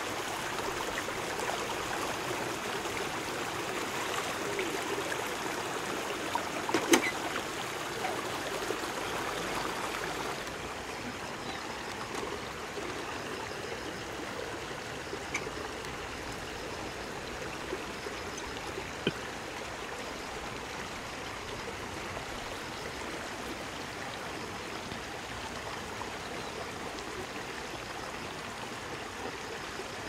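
Shallow stream running over rocks, a steady rush of water that drops a little in level about ten seconds in. A sharp knock about seven seconds in, and a few fainter clicks later.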